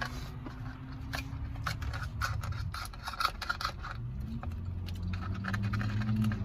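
Rapid clicks, taps and scraping of plastic food containers and utensils being handled and shifted around, with a low steady hum beneath.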